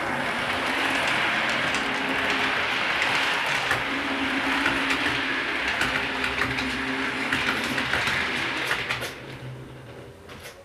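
OO gauge model train running along the track: a steady motor hum with small ticks from the wheels over the rail joints, fading away from about nine seconds in.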